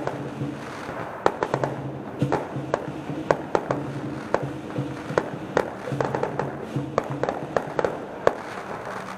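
Fireworks going off in many sharp, irregular bangs and crackles, several a second, over music playing.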